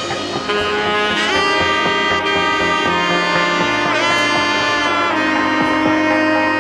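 Music: a lead melody of held notes that slide in pitch about a second in and again near four seconds, over sustained low notes.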